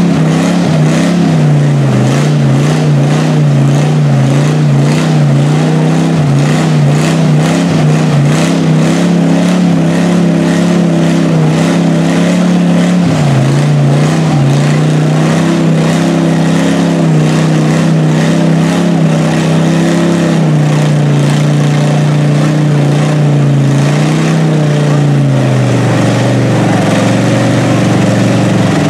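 Mud-bogging Jeep's engine held at high, steady revs while its mud tires spin in deep mud, the pitch stepping slightly up and down. About three-quarters of the way through, the revs drop and the note falls lower.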